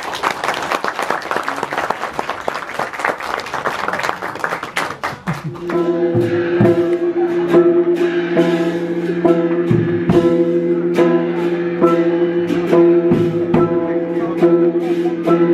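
Music. The first five seconds or so are a dense, noisy wash. About five and a half seconds in, an instrumental passage starts with a held drone and regular percussion strikes over it.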